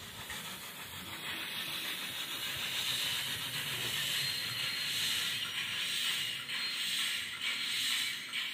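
The sound decoder of a Roco model of the FS Gr.880 steam tank locomotive plays steam hissing through the model's small onboard speaker as the locomotive runs slowly along the track. The hiss grows louder over the first few seconds and then holds steady.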